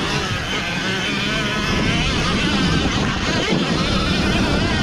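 Electric dirt bike riding on dirt, its motor whining and wavering in pitch as the throttle changes, with wind rumble on the microphone.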